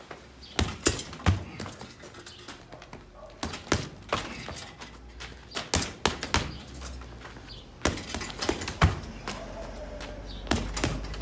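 Gloved fists striking a hanging heavy punching bag: sharp thuds in quick combinations of two or three, with short pauses between them.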